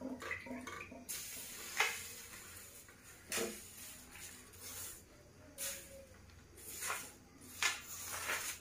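A hand patting and pressing rice-flour akki rotti dough flat on an iron tawa: five soft pats spread over several seconds, over a hissing background.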